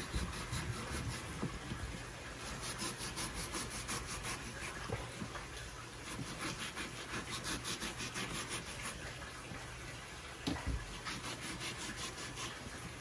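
A kitchen knife sawing back and forth through a slab of fatty charque (dried salted beef) on a wooden cutting board, a rhythmic rasp of about four strokes a second in two runs. One sharper knock comes near the end.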